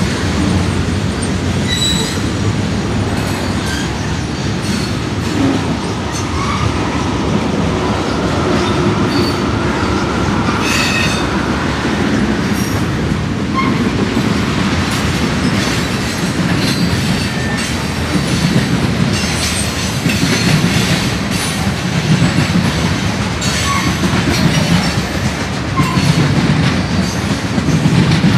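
Freight cars (covered hoppers and tank cars) rolling past: a steady rumble of steel wheels on the rails with irregular clicks and clanks at the rail joints, and faint wheel squeals near the middle.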